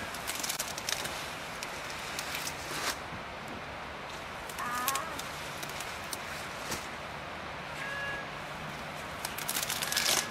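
Daikon radish leaves rustling and crackling as radishes are pulled by hand, densest and loudest near the end as a root comes up. A few short bird chirps sound in between.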